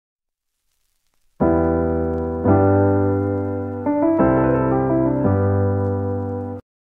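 Background music: held electronic keyboard chords that start about a second and a half in, change every second or so, and cut off suddenly near the end.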